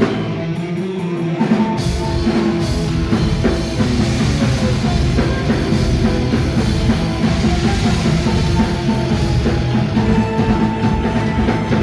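A rock band playing, with drum kit and guitar. The bass and drums thin out briefly at the start, and the full band comes back in about a second and a half in.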